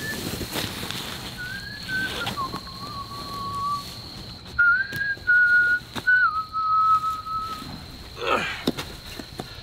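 A person whistling a slow tune in long held notes that step up and down in pitch, over a steady faint high-pitched tone.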